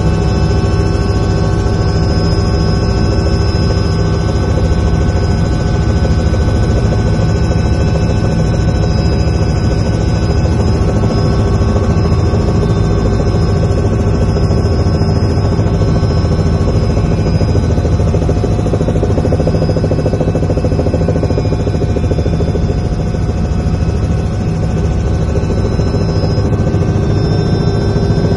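Robinson R66 helicopter in cruise flight, heard from inside the cabin: the Rolls-Royce RR300 turbine and rotor make a loud, steady drone with a constant high whine over it.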